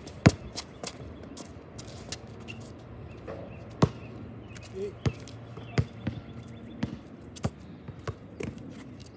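Basketball bouncing on a hard outdoor court: about a dozen sharp bounces at uneven spacing as it is dribbled and passed.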